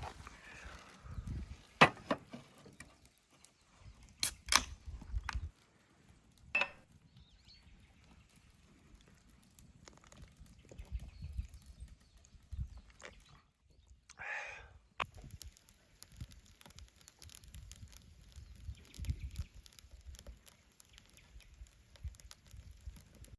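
Scattered sharp clicks and knocks over soft low thuds and shuffling, with a short scraping rustle about fourteen seconds in.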